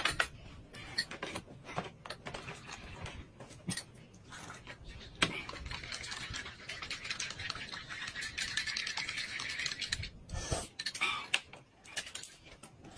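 Eating sounds: metal spoons clicking and scraping against glass cups of soup, with a drawn-out slurping hiss in the middle as the soup is sipped.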